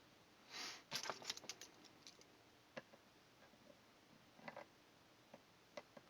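Faint, scattered handling sounds of small parts on a desk: a brief soft rustle, then a quick run of small clicks and a few single clicks spaced out over several seconds.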